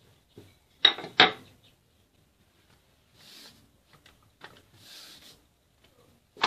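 A wooden rolling pin knocks twice sharply on a marble countertop about a second in. Soft brushing and rubbing follow as a thin sheet of dough is lifted and handled on the counter.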